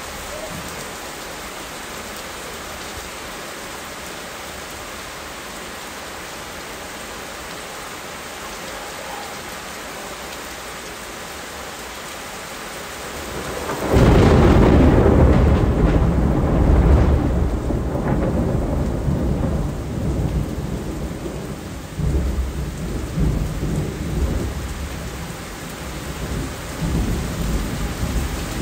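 Steady rain falling, then about halfway through a sudden loud thunderclap that goes on as a long low rumble, swelling again a few seconds later.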